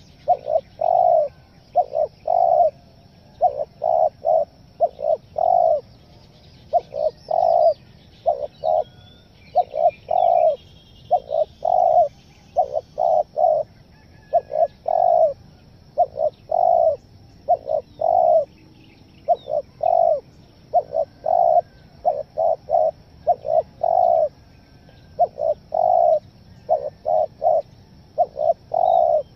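Spotted dove (tekukur) cooing over and over in repeated phrases, short clipped stuttering notes mixed with longer coos.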